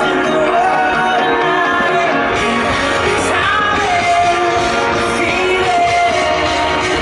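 Loud music with a singer's voice carrying a gliding melody over a dense backing.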